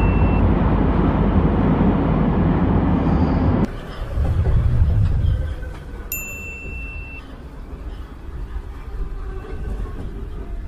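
Subway train running: the carriage's steady low rumble, which drops abruptly about four seconds in to a quieter rumble. A short electronic ding about six seconds in.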